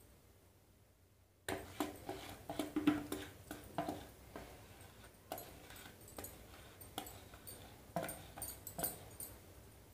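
A metal utensil scrapes and knocks against a plastic container as the last of the thick cake batter is worked out into an aluminium saucepan. It is a quick, irregular run of scrapes and small clicks, some with a short ringing squeak, starting about a second and a half in.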